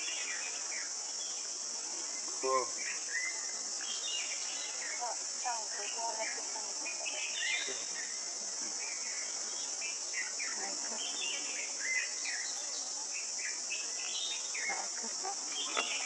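Steady high-pitched drone of insects, with many short bird chirps and whistled calls scattered over it.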